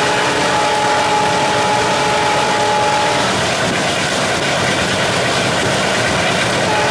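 ALCO WDM-3A diesel locomotive's 16-cylinder ALCO 251 engine running under load at speed, heard from inside the cab, with the rumble of the train running on the rails. A steady high whine runs over it and stops about three seconds in.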